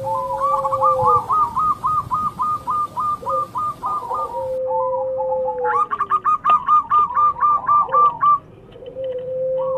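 Zebra doves cooing with their calls overlapping: quick strings of short, clipped notes over a lower drawn-out coo. There are two strings, a short pause after the second near the end, then the cooing starts again.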